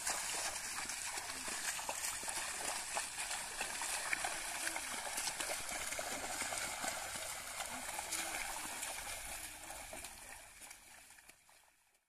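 Bulls' hooves and a wooden plough wading through a flooded, muddy paddy field: continual splashing and squelching of water and mud, fading out near the end.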